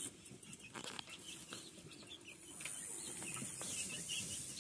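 Young chickens peeping and clucking softly as they peck at scattered feed, with a few light taps.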